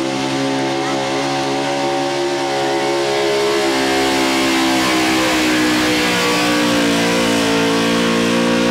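Super stock 4x4 pulling truck's big-block V8 running flat out under load as it drags the sled. The engine note holds steady, sags in pitch about three seconds in as the load builds, then climbs and holds again.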